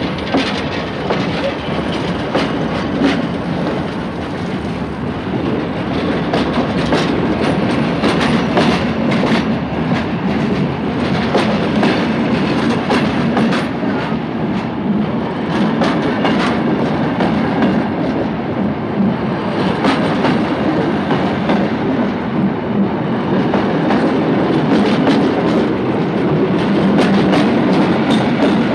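French steam train moving off and running on, wheels clicking over rail joints in an uneven clatter under a continuous rumble that slowly grows louder.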